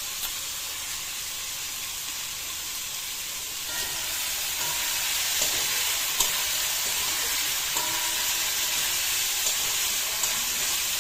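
Food sizzling as it fries in a black wok. From about four seconds in it gets louder as a spatula stirs it, with light clicks and scrapes against the pan.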